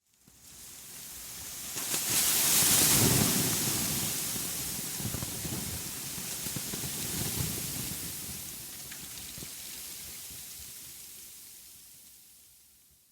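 Rushing wind noise with a low rumble beneath it. It swells to its loudest about three seconds in, then slowly dies away.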